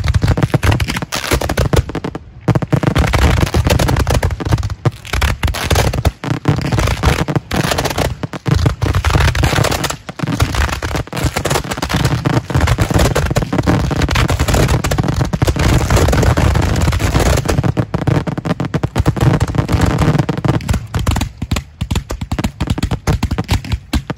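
Finale barrage of firework display shells launching from racked mortar tubes: dozens of lift charges firing in rapid, overlapping succession. The firing thins out and fades over the last few seconds.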